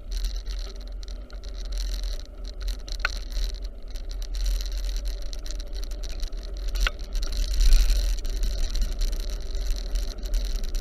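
A bicycle being ridden: a steady deep wind and road rumble with small rattles and clicks from the bike, and two brief sharp sounds about three and seven seconds in.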